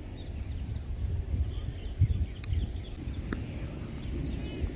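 Outdoor ambience: a low, fluctuating rumble with faint bird chirps over it, and two sharp clicks about a second apart midway through.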